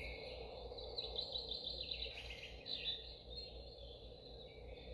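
Young Living Feather the Owl diffuser's small speaker playing one of its built-in nature-sound tracks: faint, quick chirping trills repeating over a soft steady hiss.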